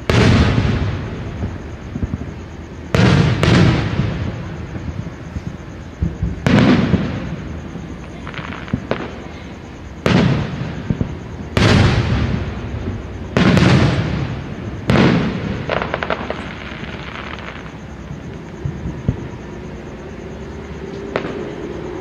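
Fireworks show: about nine loud shell bursts at irregular intervals, some in quick pairs, each fading away, with finer crackling after a few of them.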